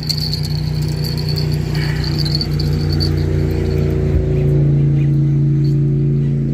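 Engine running steadily with a low hum that rises slightly about halfway through, and a faint high ringing during the first three seconds.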